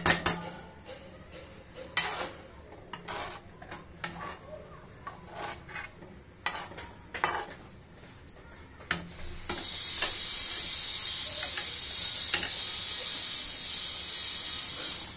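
A flat spatula stirring fish curry in a wok, with scattered knocks and scrapes against the pan. About nine and a half seconds in, a loud steady sizzling hiss starts and runs for about five seconds before cutting off: hot water poured into the hot oil and masala.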